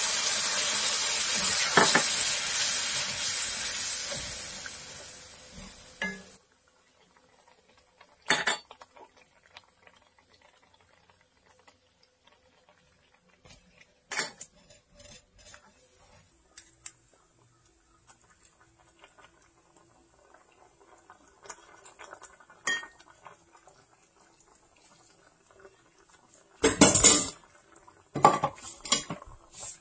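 Coconut milk hitting a hot wok, sizzling loudly and fading away until it stops about six seconds in. A few sharp knocks of a spoon against the pan follow, and near the end comes a louder clatter of knocks as fried tilapia pieces go into the sauce.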